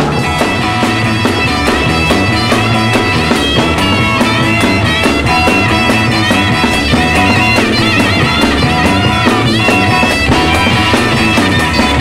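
1960s freakbeat / garage-rock band recording in an instrumental stretch: held melodic lines over a steady drum beat.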